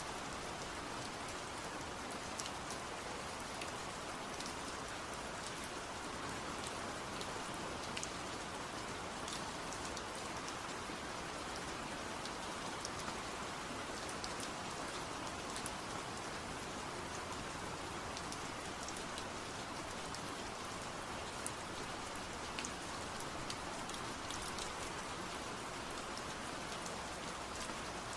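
Steady rain falling, an even hiss with scattered sharp ticks of individual drops hitting close by.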